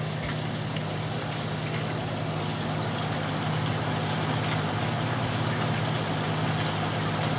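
Saltwater aquarium equipment running: a steady low hum with an even hiss.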